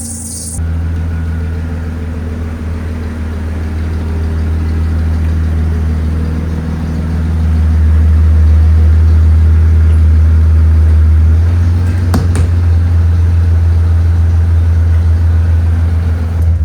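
Car engine running steadily at idle, growing louder about seven seconds in, with a single brief clank about twelve seconds in.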